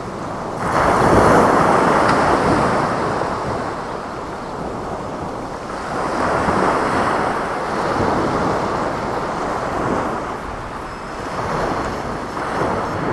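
Sea waves breaking and washing up the beach, the surf swelling and falling away every few seconds, with wind buffeting the microphone.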